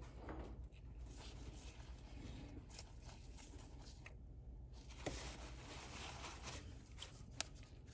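Faint handling noise as a gloved hand unscrews the fuel line fitting from a high-pressure fuel pump and pulls the line free: light rubbing with a few small clicks over a low steady hum.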